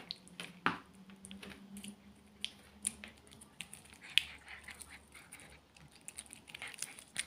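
Cat biting and chewing at a plastic-wrapped liver treat stick: scattered short clicks and crinkles of teeth on the wrapper.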